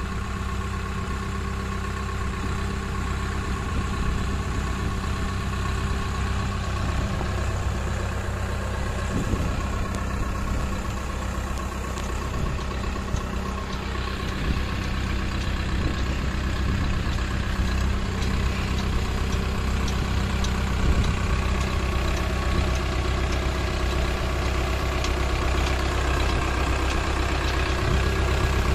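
Powertrac Euro 55 tractor's diesel engine running at low, steady revs as the tractor drives slowly over rough dirt, growing a little louder as it nears.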